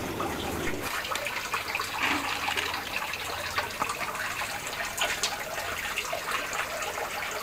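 Water from an aquaponic system's grow-bed drain pipes falling and splashing into the fish tank below: a steady trickling splash.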